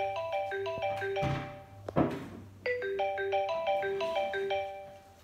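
iPhone ringtone playing a short melody of quick marimba-like mallet notes that repeats about every three and a third seconds. A sharp click sounds about two seconds in, between repeats.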